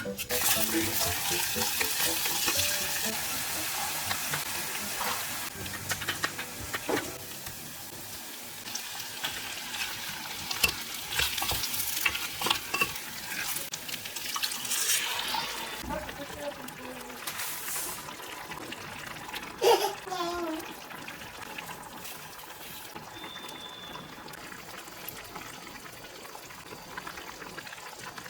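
Food sizzling and crackling in a hot frying pan, loudest for the first several seconds and quieter afterwards, with scattered clicks and scrapes of a utensil. A brief squeaky gliding sound comes about twenty seconds in.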